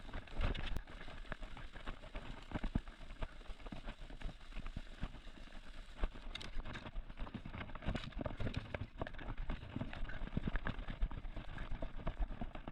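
Footsteps crunching through dry grass and brush, with irregular snaps and rustles. No engine is running.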